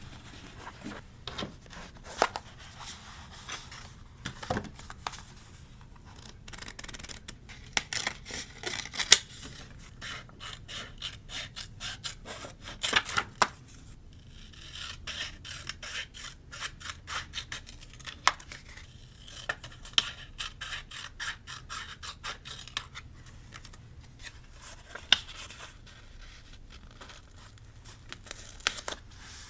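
Scissors snipping through paper, with paper rubbing and scraping as pieces are handled for scrapbooking: an irregular run of small sharp snips and clicks with patches of rough scraping.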